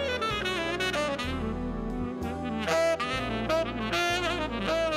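Big band jazz recording. A saxophone leads with a bending, wavering melodic line over brass chords and a bass line that moves about once a second.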